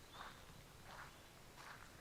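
Faint footsteps of a person walking, three soft steps about three quarters of a second apart.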